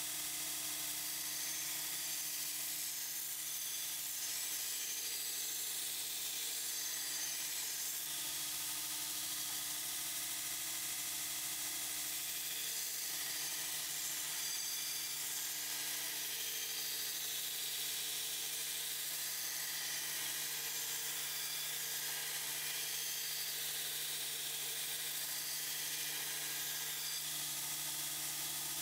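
Belt grinder running steadily while a steel knife blade is held to the abrasive belt, free-grinding the bevel.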